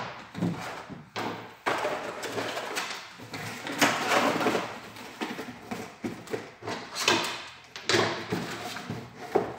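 Packaging being handled: a clear plastic tray crinkling and a cardboard box rustling, with several thumps as items are set down on a tabletop. The loudest knock comes right at the start.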